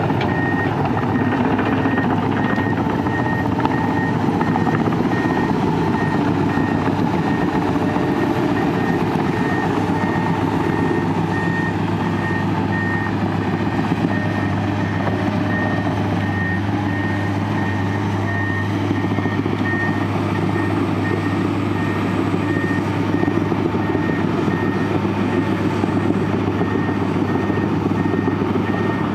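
Komatsu PC200 tracked excavator's diesel engine running steadily under load as it works, with a high electronic alarm beeping evenly throughout.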